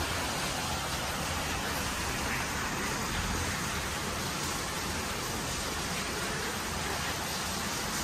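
A steady, even hiss with nothing else standing out.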